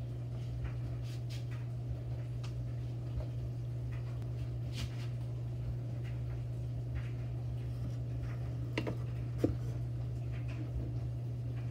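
A steady low hum, with faint scattered clicks and a sharper click about nine and a half seconds in as the rubber-padded jaws of a reacher-grabber close on an aluminium soda can.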